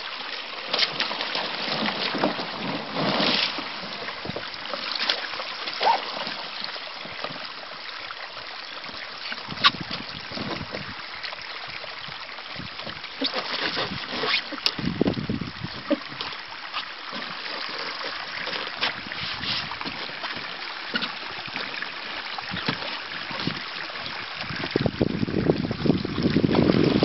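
Shallow water splashing and sloshing around a loaded canoe as people wade beside it, climb in and push it off a beaver dam, with scattered knocks against the hull. The sound gets louder near the end as the canoe is shoved off, with wind on the microphone.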